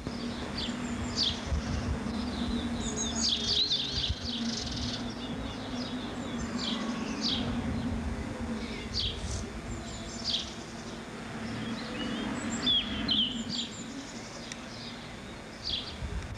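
Songbirds chirping outdoors: many short, high, quick downward-sweeping calls come in scattered runs throughout, over a steady low hum.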